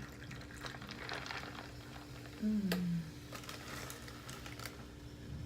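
Light clicks and rustling as food and its packaging are handled, with a short falling hum from a voice about halfway through.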